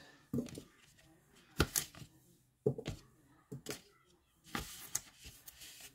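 Knife cutting a raw red potato on a plate: about five separate cuts roughly a second apart, each ending in a sharp tap of the blade on the plate.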